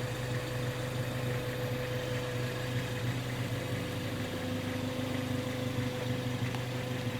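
Ford Focus ST's engine idling steadily, a constant low hum with a steady higher tone over it.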